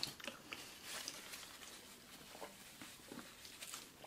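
Faint, scattered small clicks and soft rustles close to the microphone, from a drink being sipped through a straw and a paper napkin being handled.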